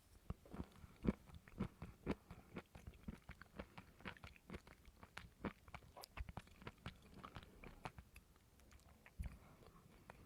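Close-up chewing of coconut: a quick, irregular run of crunchy, squeaky bites, loudest about a second in and easing off near the end.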